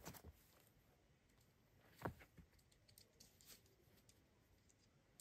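Faint scattered clicks and light taps, with one sharper knock about two seconds in.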